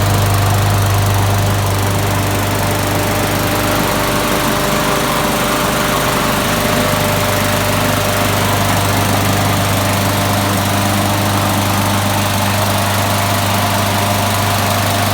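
Lawnmower's small gasoline engine running at a steady speed.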